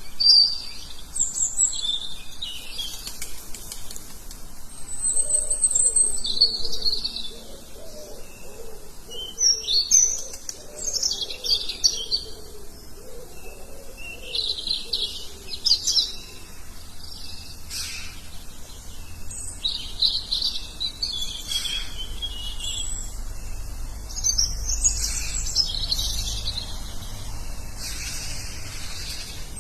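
Forest birds giving repeated sharp chirps and trills, presented as a warning call that a tiger or leopard is near. A low rumble comes in during the second half.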